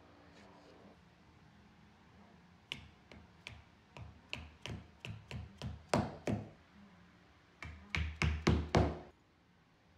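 A mallet tapping an anchor into a hole drilled in a marble shower threshold. About a dozen quick, light taps come first, then a short pause, then five harder blows near the end.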